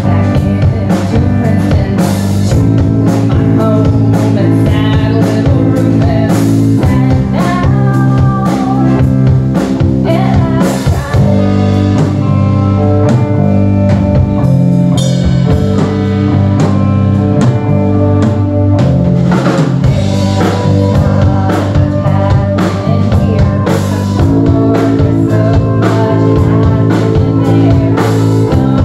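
Live rock band playing: electric guitar, bass guitar and a Gretsch drum kit keeping a steady beat, with a woman singing into a microphone.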